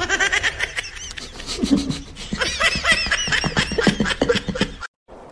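A person laughing in a long run of quick, high-pitched giggles that cuts off suddenly near the end.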